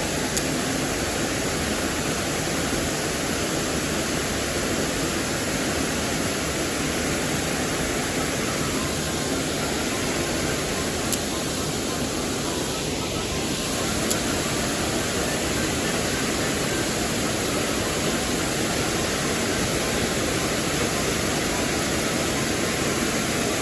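Mountain stream water rushing steadily over rocks, a constant even hiss.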